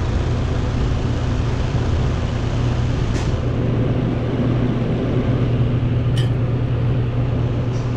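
Refrigerator running: a steady low hum with the fan moving air, and two brief light clicks about three and six seconds in.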